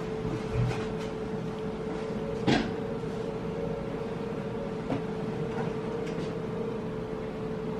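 A steady indoor hum with one held tone, broken by a few short knocks; the loudest knock comes about two and a half seconds in.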